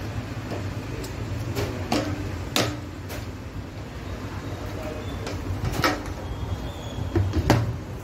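Hard plastic clicks and knocks from the latches and motor head of a wet-and-dry drum vacuum cleaner being handled, with the motor off; the loudest knocks come about two and a half seconds in and near the end. A steady low hum runs underneath.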